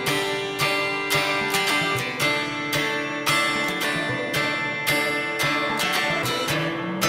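Background music: acoustic guitar strumming chords in a steady rhythm, about two strokes a second.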